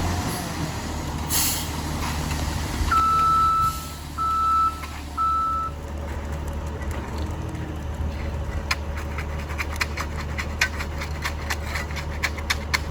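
Concrete mixer truck's diesel engine running steadily, with a short hiss of air and then its backup alarm beeping three times. A run of light rapid clicks follows in the second half.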